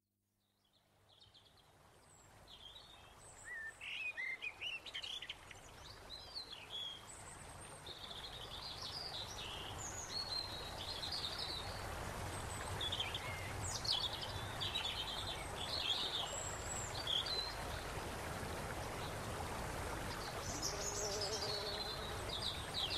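Birds chirping and trilling over a steady background hiss, fading in from silence over the first several seconds, like a nature-sounds backdrop.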